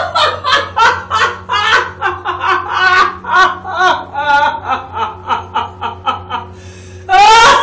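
A woman laughing hard in repeated short bursts, with a louder burst near the end, over a steady low hum.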